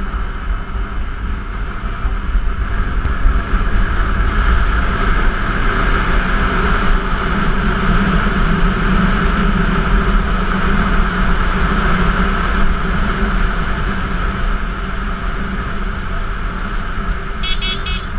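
Steady running noise of a moving road vehicle carrying the camera: engine and road noise with wind on the microphone. It holds steady throughout, and a few quick high beeps come near the end.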